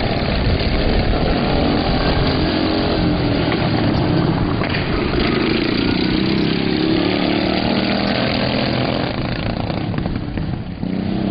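Engines of several quad ATVs racing together on a dirt track, running hard and overlapping without a break.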